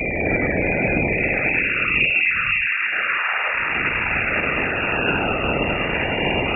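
Sonified Juno spacecraft radio and plasma-wave data from Jupiter: a harsh, steady hiss with several faint falling whistles running through it.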